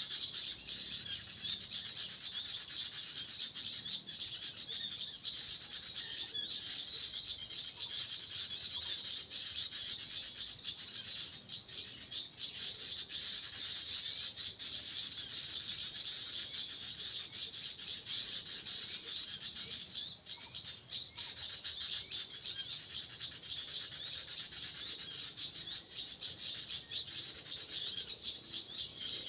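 Continuous dense twittering and rapid high chirps of small birds, a bird-call recording played from an MP3 player as a lure for bird trapping.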